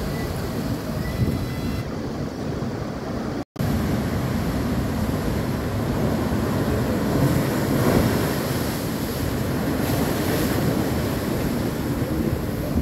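Heavy surf breaking against a seawall and slipway, foaming seawater rushing across the ramp in a continuous wash. It swells to its loudest about eight seconds in, and the sound cuts out for an instant about three and a half seconds in.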